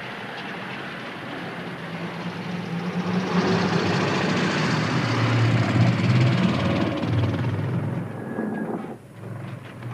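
Military truck's engine running as it drives past, growing louder toward the middle and dying away about nine seconds in.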